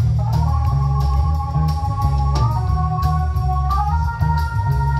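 Live rock band playing: electric guitars, bass guitar and drum kit, with held notes above a steady drum beat that step higher twice.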